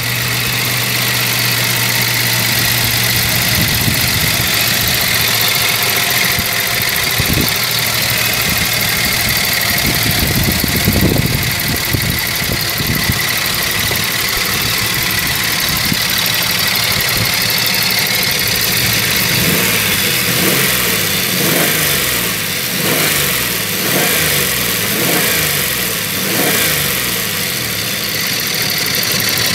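1991 Toyota 4Runner's 3.0-litre V6 (3VZ-E) engine idling steadily, heard from the open engine bay. In the last third it is revved in a series of short blips, the pitch rising and falling roughly once a second.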